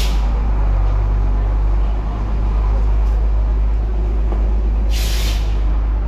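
Diesel fire engine idling with a steady low rumble, with two sharp hisses of air released from its air brakes, one at the very start and another about five seconds in.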